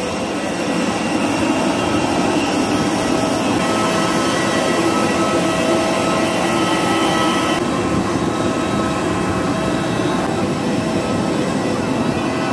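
Jet aircraft running steadily close by: a dense, even rush of engine noise with faint steady whining tones over it.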